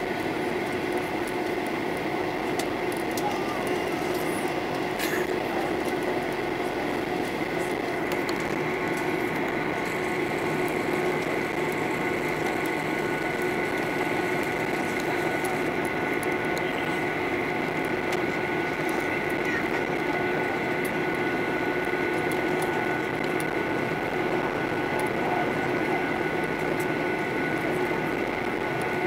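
Cabin noise of a Boeing 737-800 on the ground with its CFM56 jet engines running at low power: a steady whine of several held tones over an even rush of air, with no rise in power.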